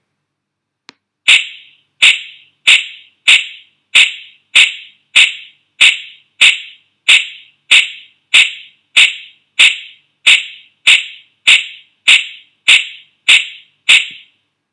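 Virtual lab's scraping sound effect for calcite dragged across a streak plate, repeating at a steady rhythm: about twenty short, sharp strokes, one roughly every two-thirds of a second, each fading quickly. A faint click comes just before the strokes begin.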